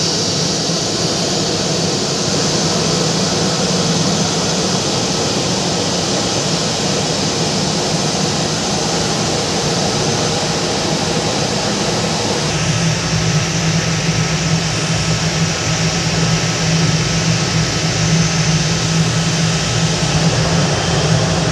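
Airbus A320's jet engines running at idle as the airliner taxis in to its stand, a loud steady rush with a low hum under it. The sound changes abruptly about twelve seconds in.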